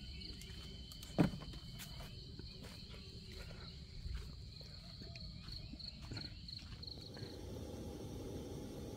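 Insects chirping in a high, evenly pulsed train, cricket-like, with a single sharp knock about a second in. Near the end the chirping stops and a low steady hum takes over.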